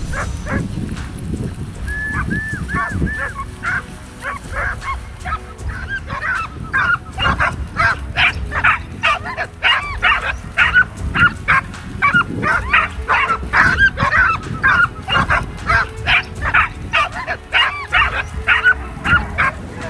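A pack of Italian black-and-tan hounds (segugi italiani nero focato) giving tongue on a hare's trail: many rapid, high, repeated yelping bays from several dogs at once. The calls are sparser at first and become a dense, continuous chorus from about six seconds in.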